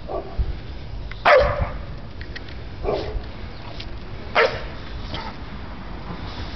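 Dogue de Bordeaux puppies barking: three short barks about a second and a half apart, the first the loudest, with a fainter one just before them.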